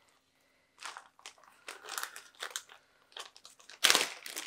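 Clear plastic zip-top bag crinkling in short irregular rustles as hands open it and handle the plants inside. The rustling starts about a second in and is loudest near the end.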